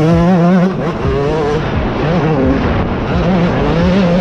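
Yamaha YZ125 two-stroke dirt bike engine revving hard under riding load, its pitch climbing sharply at the start, holding, then falling and climbing again several times.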